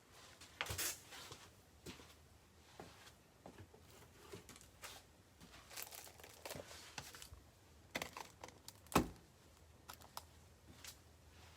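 Trading card packaging being torn open and crinkled in short, scattered rips and rustles, with a sharper knock about nine seconds in.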